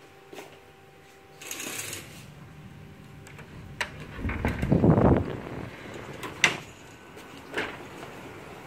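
Handheld phone handling noise: a short rustle as sheer curtains are brushed aside, a few sharp clicks, then a loud deep rushing rumble about four seconds in that lasts over a second.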